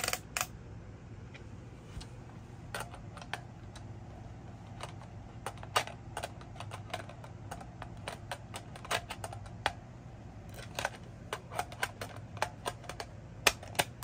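Irregular small plastic clicks and taps as a fire alarm strobe unit is handled and fitted onto its mounting plate, over a faint steady low hum.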